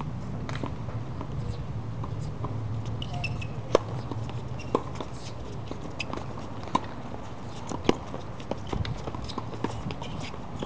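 Tennis ball being hit by rackets and bouncing on a hard court during a doubles rally: a string of sharp pops, irregularly spaced, about a second or so apart, over a low steady background rumble.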